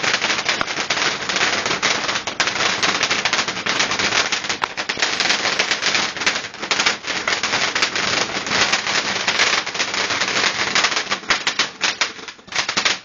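Fireworks going off in a rapid, continuous crackle of sharp pops and bangs, too close together to count, thinning briefly near the end before picking up again.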